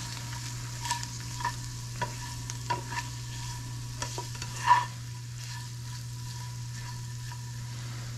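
Tofu cubes sizzling in oil in a nonstick frying pan, with short scrapes and taps of a big plastic spatula stirring them over the first five seconds, then just the steady sizzle. The tofu is nearly done, golden and crispy.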